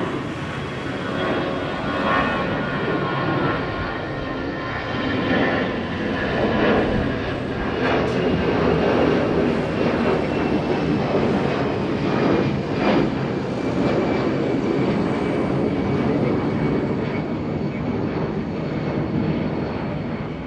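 Jet engines of an Airbus A320 airliner climbing out after takeoff: a steady, loud roar with a faint high whine that slowly falls in pitch.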